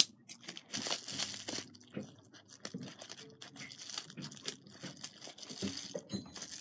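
Bubble wrap crinkling and tearing as it is cut and pulled apart by hand: a run of irregular crackles, with a sharp click at the very start.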